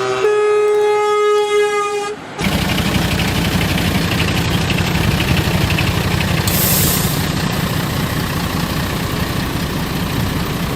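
A truck's horn sounds for about two seconds, then the truck's engine runs with a loud, steady rumble.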